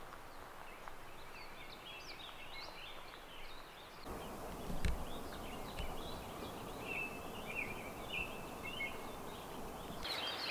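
Small songbirds chirping and twittering in short, scattered calls over a faint steady outdoor hiss, with one soft low bump about five seconds in.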